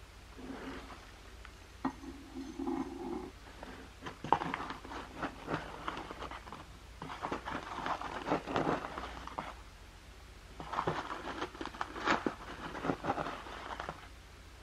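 Foil tea bag crinkling and rustling in several bursts as it is handled and tipped, shaking loose oolong tea leaves out onto a metal tray.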